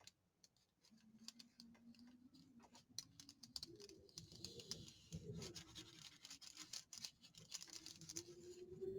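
Faint paper handling: scratchy rubbing and rustling of paper with many light ticks.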